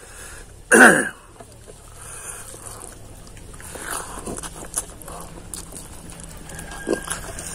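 Close-up eating sounds: rice and pickled meat eaten by hand, with soft chewing and small mouth clicks and smacks. A short, loud voice-like call comes just under a second in.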